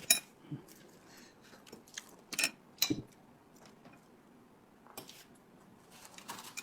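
Faint eating sounds: a few scattered small clicks and soft mouth and food-handling noises while someone eats a meat-filled bun.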